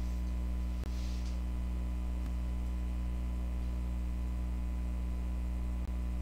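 Steady low electrical hum, mains-type, with a faint brief hiss about a second in.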